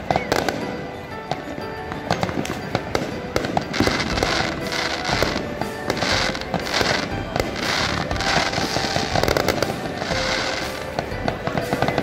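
Aerial fireworks bursting overhead in a dense run of bangs, with crackling surges about once a second in the second half. Music plays underneath.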